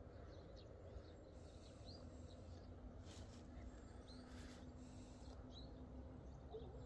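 Near silence with a few faint, short bird chirps scattered through it.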